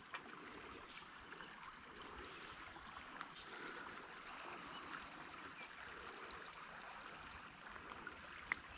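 Faint, steady rush of river water running, with a few small clicks and one sharper click near the end.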